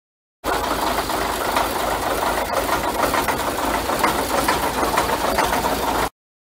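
Praga V3S truck's air-cooled Tatra straight-six diesel running steadily with a fast clatter. The sound starts abruptly about half a second in and cuts off just before the end.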